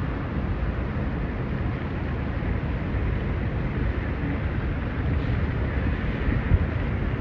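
Steady city street noise of traffic, heaviest in the low rumble, with a brief knock about six and a half seconds in.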